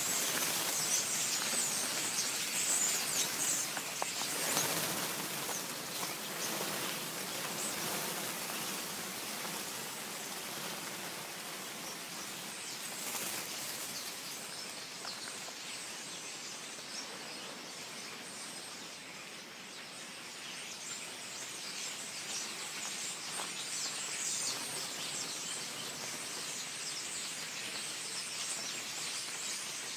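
A huge flock of birds settling at night in trees and bamboo: thousands of birds chirping at once over a dense rustling rush of wing flaps, like wind in the trees. Loudest in the first few seconds, then easing a little.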